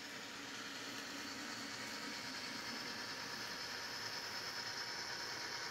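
N scale Atlas GP40 model locomotive's motor and gear drive running, a faint steady whir with a fine quick rattle as it hauls a string of tank cars.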